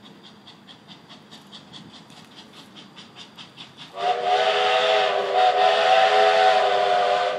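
Steam locomotive approaching with a quick, even exhaust chuff. About four seconds in, its steam whistle blows one long, loud blast of several tones sounding together, which cuts off near the end.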